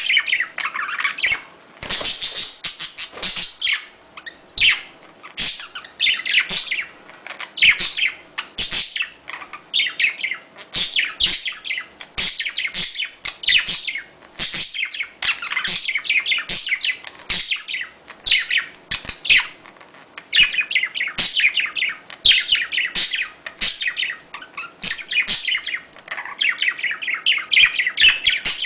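Budgerigars chattering and warbling in rapid chirps, in bursts of about a second with brief gaps, keeping up a continuous stream of song. This is breeding chatter, the kind played to bring budgies into breeding condition.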